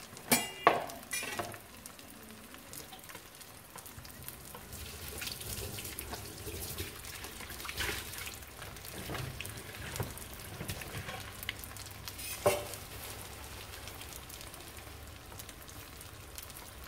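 Rice-paper vegetarian spring rolls sizzling steadily as they shallow-fry in hot oil in a nonstick wok. There are sharp clicks of wooden chopsticks against the pan and rolls as they are turned: a few near the start and one more about twelve seconds in.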